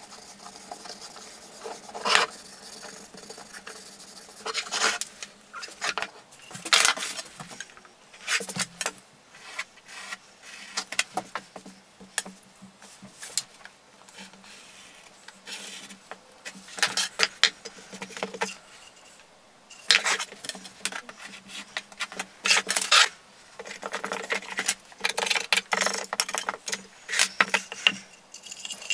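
A series of short rubs and scrapes from handwork on a small wooden tray: a rag wiping finish onto the sapele wood, a craft knife drawn through felt along a steel rule, and the wooden tray being handled. The strokes come in clusters with short pauses between them.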